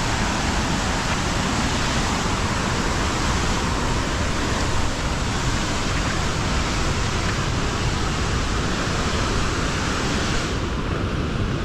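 Waterfall pouring heavily close by, a loud, steady rush of falling water. About ten and a half seconds in, the higher part of the hiss drops away suddenly.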